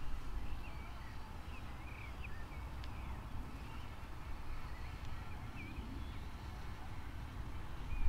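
Low wind rumble on the microphone, with small birds chirping in short, scattered calls.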